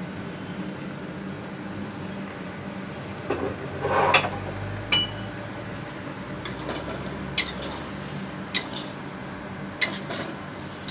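A cooking utensil stirring udon noodles in a black wok, scraping the pan and tapping sharply against its metal side several times, with the noodles simmering in broth and a steady low hum underneath.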